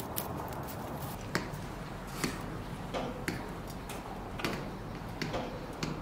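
Light clicks and knocks of objects being handled, about eight of them spaced irregularly, over a steady low hum.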